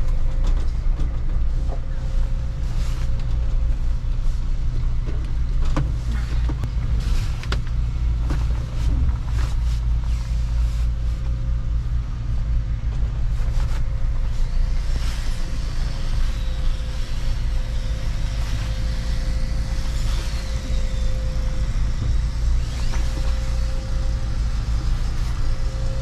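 Toyota pickup truck moving slowly in reverse, a steady low rumble from its engine and tyres heard from inside the cab, with scattered light clicks and knocks.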